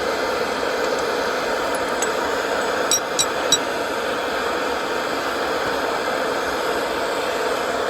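Steady mechanical running noise with three light metallic clinks, like a tool tapping metal, about three seconds in.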